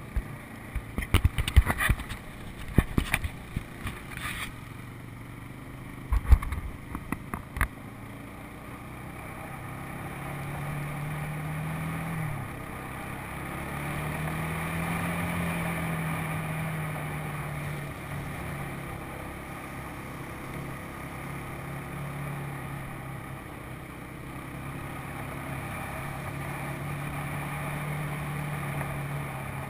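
ATV engine running on a dirt trail, its note rising and falling with the throttle, with one sharp drop about twelve seconds in. Sharp knocks and rattles come in a cluster in the first few seconds and again around six to seven seconds in.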